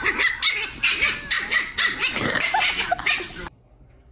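Small dog barking and yapping in a quick run of sharp, high barks, about three a second, which stops suddenly about three and a half seconds in.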